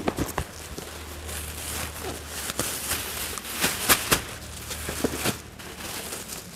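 Plastic bags rustling and a cardboard box being handled, with scattered sharp crinkles and knocks, loudest about four seconds in.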